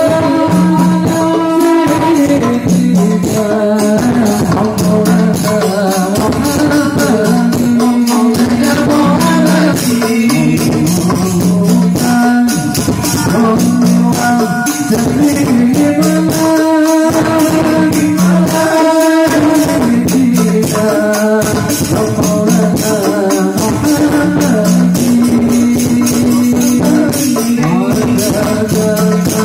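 Live sholawat: a lead male voice sings long, melismatic held lines into a microphone, amplified through a PA system, over a rebana frame-drum ensemble beating a steady rhythm.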